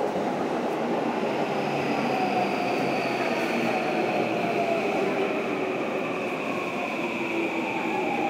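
Yamanote Line electric train pulling into the platform, a steady rumble under its motor whine, which glides slowly down in pitch as the train brakes to a stop.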